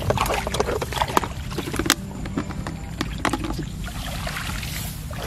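Shallow muddy water splashing and sloshing as hands sweep through a bamboo basket, with a quick run of sharp splashes in the first two seconds and a few more about three seconds in.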